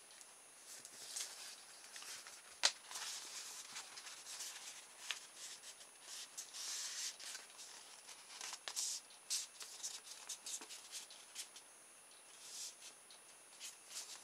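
Faint, quick rustling and crinkling of sticky-back paper being cut and handled, with scattered sharp clicks, the sharpest about three seconds in; the footage is sped up tenfold.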